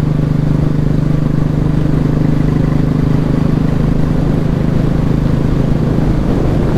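Royal Enfield Bullet single-cylinder motorcycle engine running steadily under way, a low, even hum that holds one pitch throughout, with wind and road noise.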